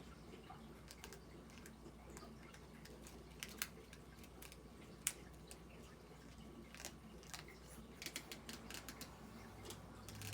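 Small plastic pieces of a spiral-drawing set being handled, giving scattered light clicks and taps, with a sharper click about five seconds in.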